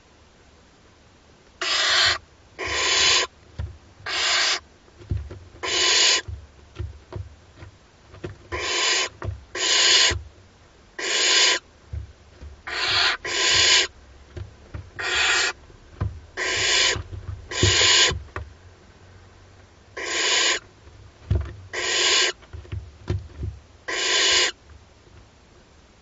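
Barn owl chicks giving their hissing, rasping begging calls, the 'snoring' of owlets asking for food. About fifteen short hisses, each around half a second long, come at irregular gaps, with soft low knocks from the chicks shifting about on the nest-box floor in between.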